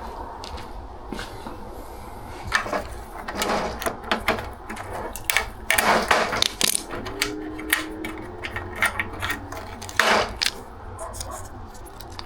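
Small screen door roller wheel assemblies and hardware being handled: an irregular string of clicks, rattles and knocks, with sharper knocks about six and ten seconds in.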